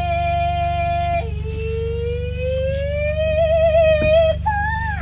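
A woman's voice holding one long steady note, then a lower note that slides slowly upward with vibrato and jumps higher near the end, over a steady low hum.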